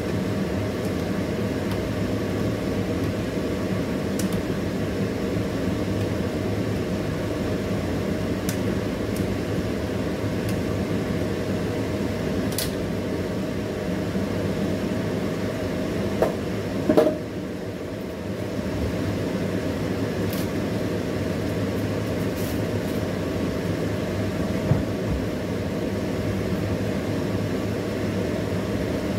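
Steady mechanical hum with a rushing noise, like a running kitchen fan, with a few brief clicks about halfway through and once more later.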